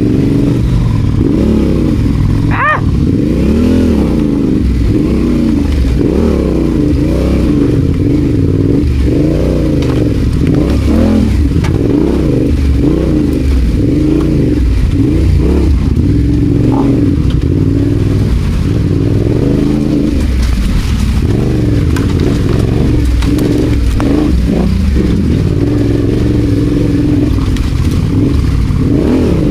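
Adventure motorcycle engine running off-road, its revs rising and falling continually with the throttle.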